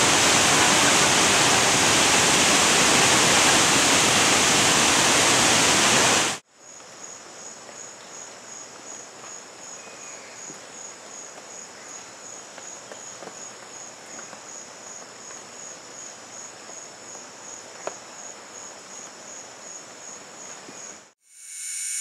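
Large waterfall's falling water, a loud steady rush, cut off abruptly about six seconds in. Quieter rainforest ambience follows, with an insect's high, steady trill pulsing a little over twice a second and a faint click near the end.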